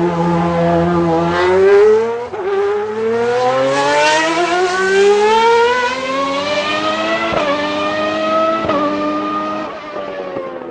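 Old V12 Formula One engine accelerating hard through the gears: its pitch climbs in long rising sweeps, broken by quick upshifts about two, seven and a half and nine seconds in, then drops away near the end as the throttle comes off.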